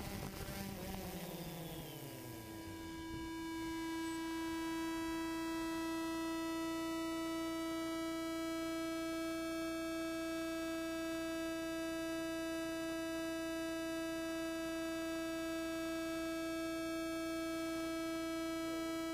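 Phantom 2 quadcopter motors spinning down after landing, their whine falling in pitch over about three seconds. After that comes a steady electrical hum at one pitch with overtones.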